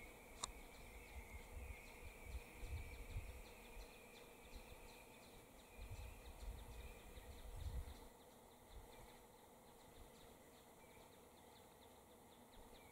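Near silence: faint bush ambience with a steady high drone that fades out about two-thirds of the way through, faint rapid ticking, and low rumbles in the first half.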